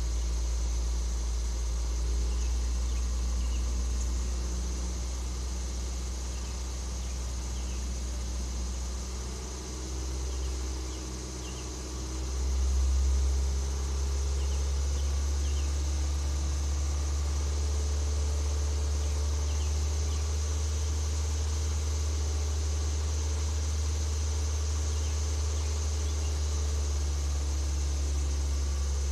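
2017 Nissan Micra SV's 1.6-litre four-cylinder engine running steadily, with a faint intermittent tapping that the owner takes for an engine fault. Its low hum swells briefly about twelve seconds in.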